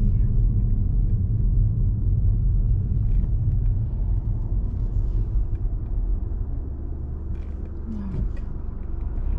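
Low engine and road rumble heard inside a car's cabin as it slows in traffic, getting a little quieter over the last few seconds as the car comes to a stop.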